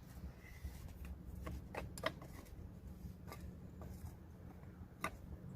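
Faint, scattered clicks and light taps of small metal hub parts being handled, about six in all, over a low steady hum.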